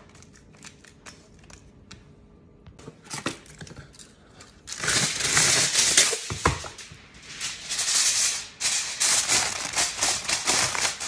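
Aluminium foil pulled from its box and crinkled as it is pressed over a foil baking pan. The loud crinkling starts about four and a half seconds in, with a single thump a couple of seconds later; before that there are only faint scattered clicks.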